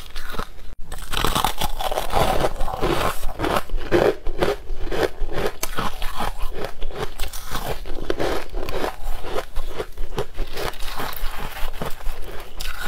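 Crushed ice being bitten, chewed and broken apart by hand, as a dense run of quick crunches and crackles.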